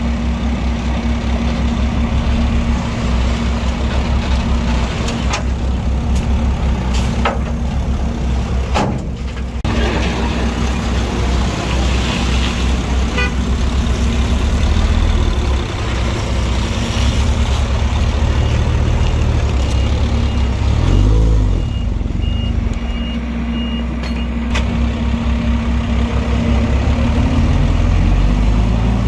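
Diesel engines of earthmoving machinery, a bulldozer and dump trucks, running steadily under load, with one engine revving up and dropping back about two-thirds of the way in. A reversing beeper sounds in a rapid run of beeps for several seconds at about the same time.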